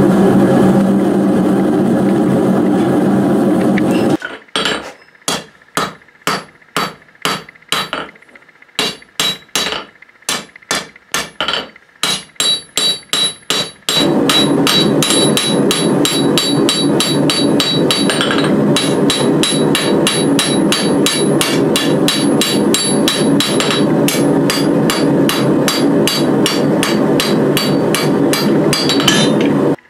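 Gas forge burner running steadily for about four seconds, then a hand hammer striking a hot steel bar on an anvil, about two blows a second with short pauses. From about halfway, faster hammering over steady burner noise, with the anvil ringing.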